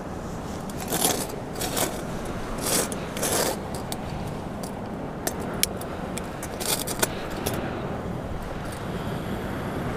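A screw-on gas canister camping stove being handled, fitted and lit: irregular sharp clicks and short scrapes of metal parts, with fewer clicks in the last few seconds, over steady background noise.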